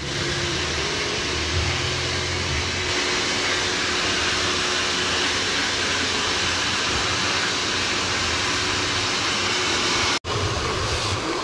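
Hand-held hair dryer blowing steadily on wet hair: a loud, even rush of air over a faint steady motor hum. The sound drops out for an instant about ten seconds in and then resumes.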